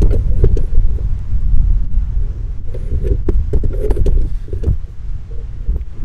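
Strong wind buffeting the microphone: a loud, gusting low rumble, with a few sharp knocks.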